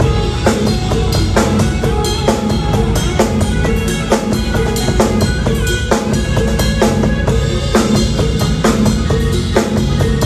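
Band music with a steady drum-kit beat, bass drum and snare, about two strokes a second.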